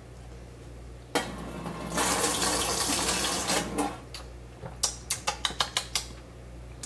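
Water running from a small gooseneck drinking-water faucet at a kitchen sink, drunk straight from the spout. It starts about a second in and runs heavier for a couple of seconds. Near the end comes a quick series of short clicks.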